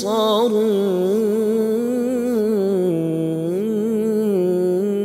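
A man reciting the Quran in a melodic tajweed style, drawing out long, ornamented notes whose pitch wavers and glides without a break.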